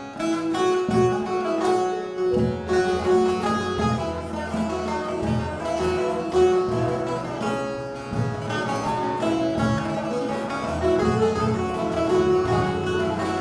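Turkish folk music ensemble playing an instrumental passage on plucked string instruments, with quick repeated notes carrying the melody.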